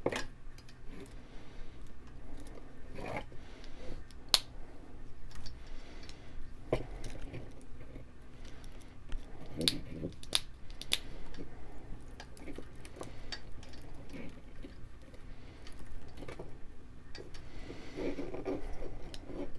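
Gates of a Yora 3018 plastic drag chain being pushed shut over cables, snapping closed: a handful of sharp clicks scattered among soft plastic handling noise.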